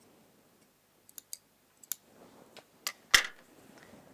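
Small scissors snipping off loose thread ends: a scatter of short, sharp clicks, the loudest about three seconds in, with faint handling noise between them.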